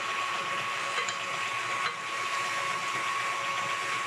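KitchenAid Artisan stand mixer running steadily with a constant high whine, its wire whisk beating an egg-yolk and sugar batter in a glass bowl.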